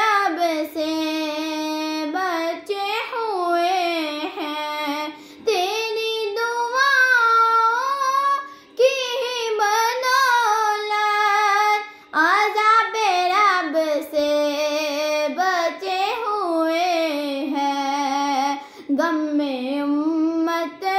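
A young girl singing an Urdu naat solo, with no instruments: long drawn-out notes that bend and waver in pitch, broken by short breaths between phrases.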